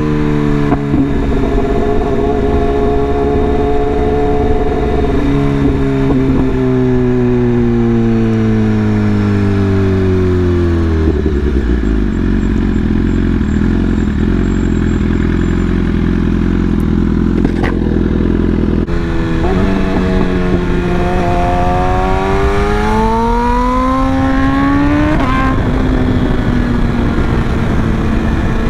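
BMW S1000RR inline-four sport bike engine on the move: the revs fall away in steps as it slows and shifts down, run low and steady for several seconds, then climb again as it accelerates, with a gear change about 25 seconds in.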